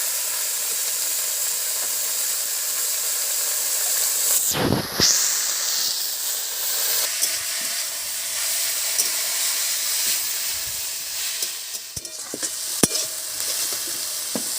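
Leafy greens (saag) frying in hot mustard oil in an iron kadai: a steady sizzle while they are stirred, swelling briefly about five seconds in, with a few sharp spatula knocks near the end.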